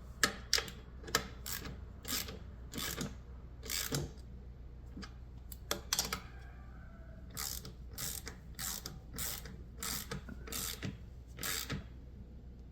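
Hand ratchet wrench clicking in runs of quick strokes with short pauses, tightening the bolts on an outboard lower unit's water pump housing a little at a time so it seats down evenly.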